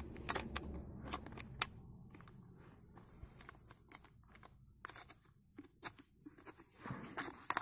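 Scattered light metallic clicks and clinks of tools and metal parts being handled, a few sharper ones in the first two seconds and again near the end, with quiet stretches between.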